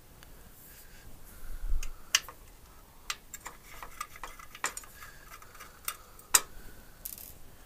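Small hard parts being handled on a table around an astronomy filter wheel and its threaded mounted filters: scattered sharp clicks and taps, about a dozen, the loudest a little after six seconds, with a low handling bump near the two-second mark.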